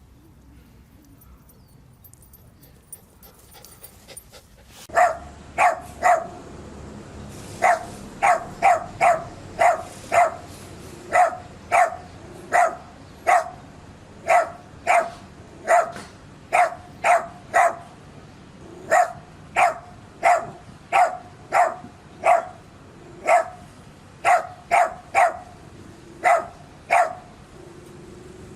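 Dog barking over and over in short, sharp single barks, about one to two a second, starting about five seconds in after a quiet stretch.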